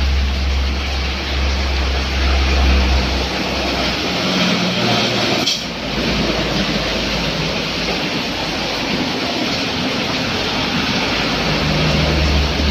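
Steady hiss of rain and tyres on a wet road while a large tanker truck passes, its engine running low and heavy in the first three seconds and again near the end. The sound breaks off briefly about five and a half seconds in.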